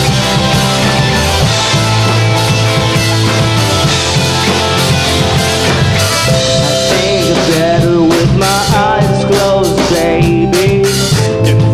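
Alternative rock band playing live: electric guitar, bass guitar and drum kit. A wavering melody line rises over the band about seven seconds in.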